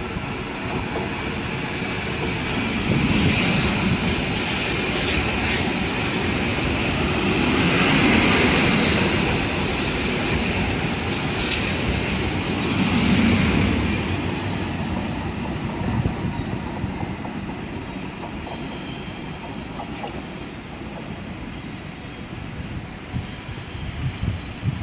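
Koleje Śląskie electric multiple unit running in along the platform, its wheels rumbling on the rails. The noise swells as the train passes close, with high brake and wheel squeals in the middle, then dies down as it slows and moves off.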